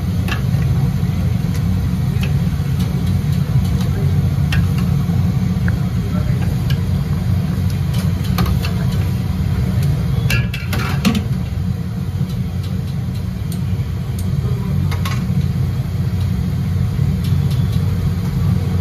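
Steady low roar of a gas burner under a large iron tawa, with onions sizzling in oil on the griddle and a few sharp clicks and clinks.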